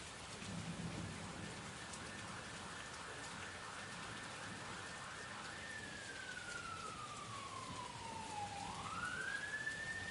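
Steady rain falling, with a brief low rumble about a second in. In the second half a wailing emergency-vehicle siren slowly falls in pitch, then sweeps back up and holds high near the end.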